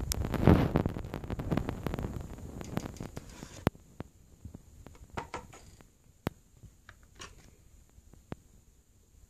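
Cardboard box being opened by hand: rustling and scraping with sharp clicks as the lid is lifted off over the first few seconds. Then scattered light taps and rustles as a paper card is picked out of the box.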